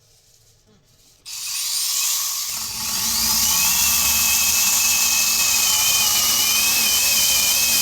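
A 12-inch brushless cordless electric chainsaw starts about a second in and cuts through a log. It gives a steady high motor-and-chain whine, and the sound deepens under load once the chain bites into the wood.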